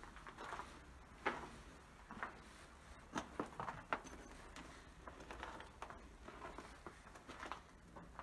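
Footsteps crunching and scraping over debris on a floor, an irregular scatter of faint cracks and clicks with a few sharper snaps.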